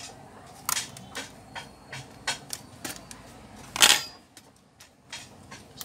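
Irregular sharp clicks and taps of a laptop's plastic casing and a hand tool being handled during disassembly. About four seconds in there is one louder, longer clatter.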